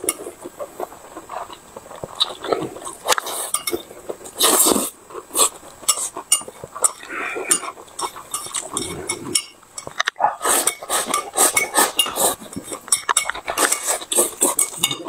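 Close-up eating sounds: noodles slurped, with wet chewing and lip smacks, and chopsticks clicking against a ceramic plate.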